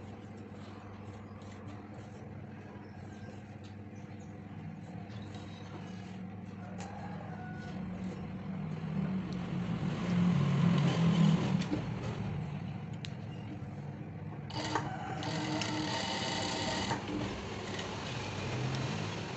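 Single-needle flat-bed sewing machine stitching through fabric in short runs over a steady low hum, loudest about ten seconds in, with another brief run near the end.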